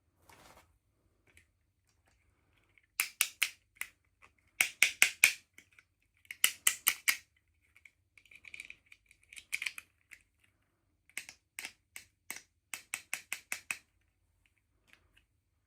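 Hands handling small toy pieces or packaging: quick runs of sharp clicks and taps, three to five at a time, coming in groups every second or two.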